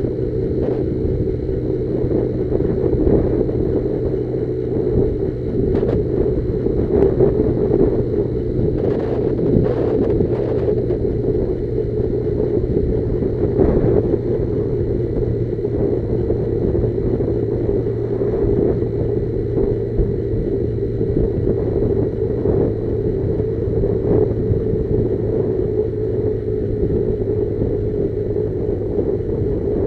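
Motorcycle engine running at a steady pace while riding, with a heavy low rumble of wind and road noise on the microphone.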